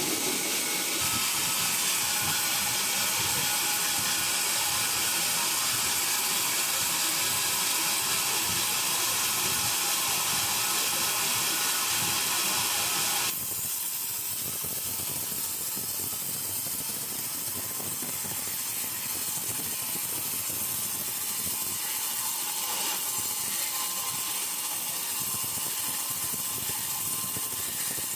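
Sawmill saw and machinery running steadily with a dense hissing whir. About 13 seconds in the sound drops suddenly to a somewhat quieter, duller running noise.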